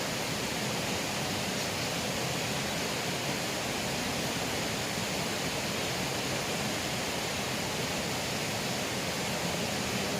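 Steady rushing of water in a small river, an even hiss with no breaks or separate sounds.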